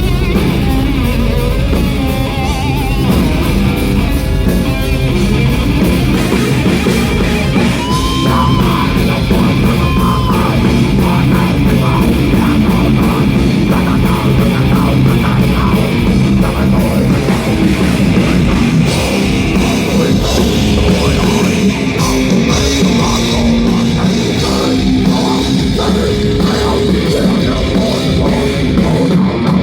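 Live rock band playing a heavy song at full volume, with electric guitars and a drum kit.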